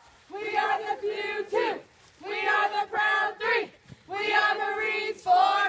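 A group of young people chanting a boot-camp cadence in unison: three sung phrases, each about a second and a half long with short pauses between, each ending in a downward slide.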